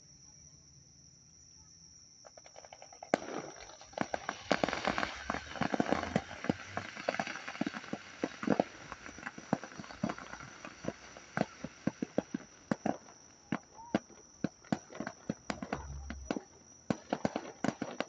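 Fireworks crackling: a dense run of sharp pops and crackles begins about two seconds in, is thickest for several seconds and then thins to scattered cracks. A steady high insect trill runs underneath.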